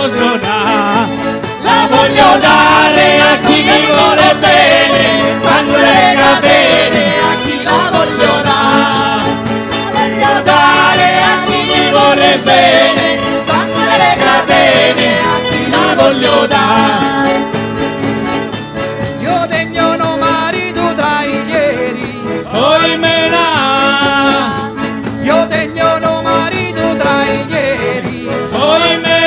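Live folk band playing, with mandolin, acoustic guitar and accordion, over a wavering melody line.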